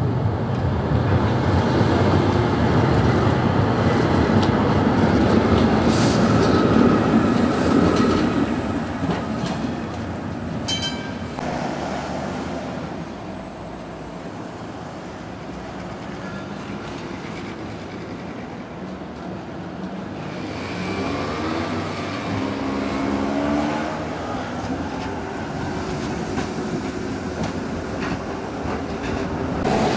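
City trams running on street track: steel wheels rumbling on the rails as a tram passes close, loud for the first several seconds and then fading. A short sharp clack comes about a third of the way in. Quieter street-traffic noise follows, with tones that rise and fall, and another tram draws near toward the end.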